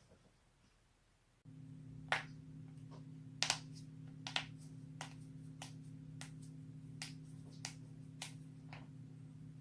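A series of about a dozen sharp joint cracks and pops, the loudest near the start, over a steady low hum that begins about a second and a half in.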